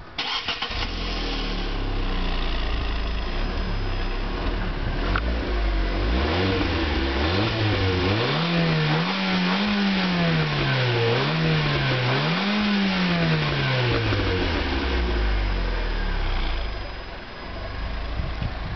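Fiat Grande Punto 1.4 16v StarJet four-cylinder petrol engine on its stock exhaust, starting up right at the beginning and idling. About six seconds in it is revved up, rising and falling twice, then drops back to a steady idle.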